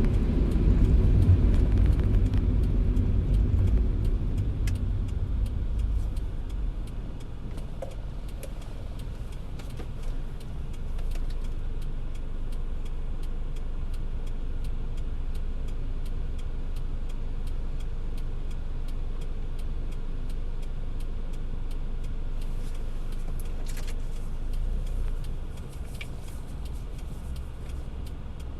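Car driving in the rain: a steady low road and engine rumble with scattered raindrops ticking on the car. The rumble is louder for the first few seconds, then settles lower.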